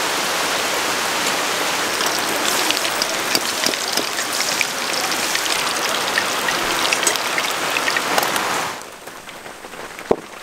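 Heavy rain pouring down onto a pond and trees, a dense steady hiss that drops to a softer patter near the end.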